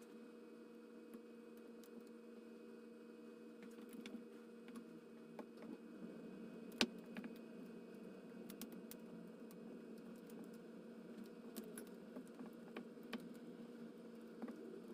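Small scattered clicks and light taps over a faint steady hum, with one sharper click about seven seconds in, typical of tools and small parts being handled on a repair bench.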